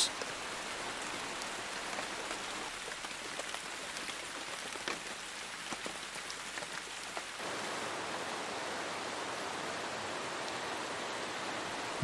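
Rain falling steadily on open water: an even hiss with a few single drops ticking out of it. The sound changes slightly about seven seconds in.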